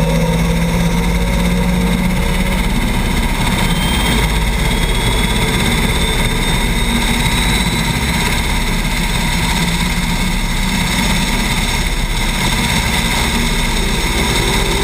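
Eurocopter AS332 C1 Super Puma helicopter running steadily: twin-turbine whine over the drone of the rotor, with a faint tone slowly rising about four seconds in.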